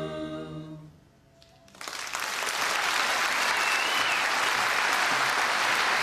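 A choir's final held chord fades out, there is about a second of near quiet, and then the audience breaks into steady applause.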